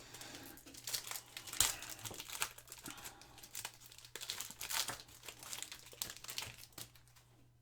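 Foil trading-card pack wrapper crinkling and tearing as a new pack of football cards is opened, with a dense run of irregular crackles that thins out near the end.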